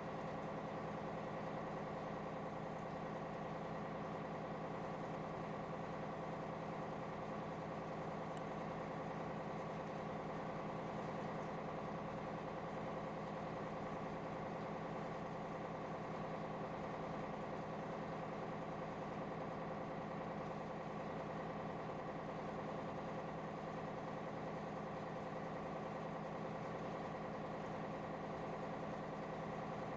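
Cargo ship's diesel engine running steadily as the ship gets under way, an even, unchanging drone.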